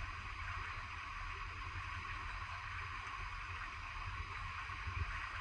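Steady rushing of a stream flowing over rocks, with a low rumble underneath.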